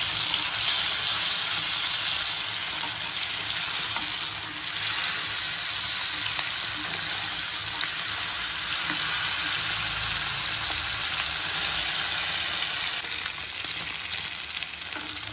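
Masala-coated vela meen fish shallow-frying in hot oil in a non-stick pan, a steady sizzle, with a few light taps and scrapes of steel spatulas turning the pieces.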